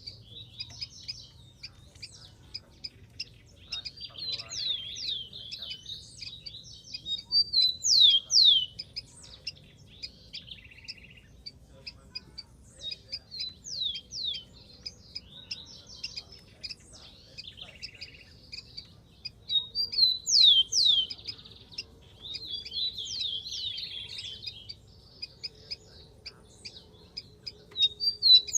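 Rufous-collared sparrow singing: short songs of a few clear, downslurred whistles ending in a buzzy trill, repeated every few seconds.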